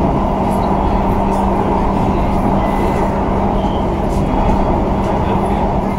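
Pune Metro train running between stations, heard from inside the coach: a steady rumble with a constant low hum.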